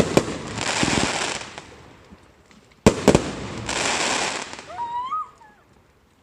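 Fireworks going off: sharp bangs at the start and again about three seconds in, each followed by about a second of hissing spray.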